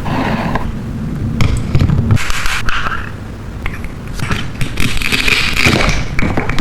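Hands handling small plastic toy kitchen pieces, with irregular scraping, rustling and clicking.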